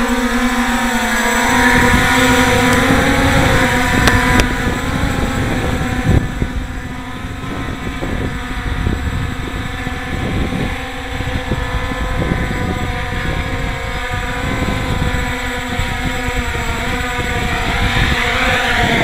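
Hexacopter drones hovering, their six electric motors and propellers giving a steady multi-tone whine, with gusty wind buffeting the microphone. Near the end the whine rises in pitch as one comes in close.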